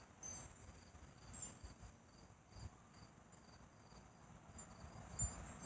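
Faint crickets chirping in a steady rhythm, about two to three chirps a second, with a faint low thump near the end.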